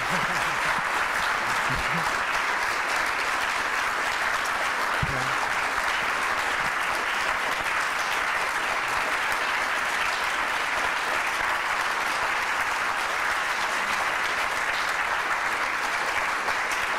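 Audience applauding steadily: a large crowd's continuous clapping that does not let up.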